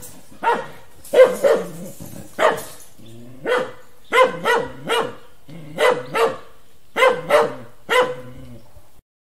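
A dog barking repeatedly, loud sharp barks coming singly and in quick pairs about every second, about a dozen in all. The barking stops abruptly near the end.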